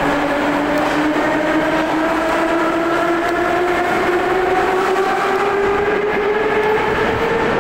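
Metro train accelerating out of a station: its traction motors give a whine of several tones that climbs steadily in pitch over the rumble of the wheels.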